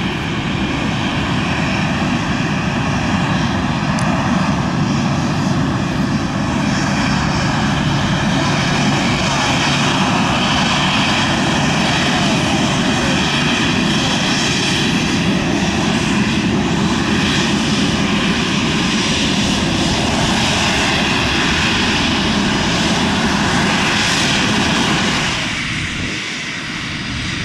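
Boeing 737-800's two CFM56-7B turbofan engines running at taxi power as the jet taxis by: a steady jet whine over a broad rush. The sound eases off a little near the end.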